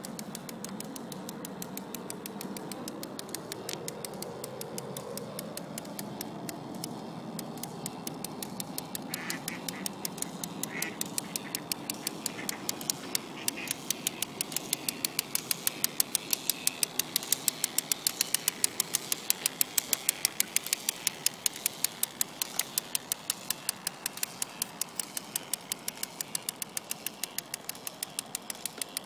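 Geared K'nex motor drive and paddle wheel of a homemade RC paddle steamer running, with a low motor hum under an even clicking at about two to three clicks a second. The clicking grows louder from about halfway through.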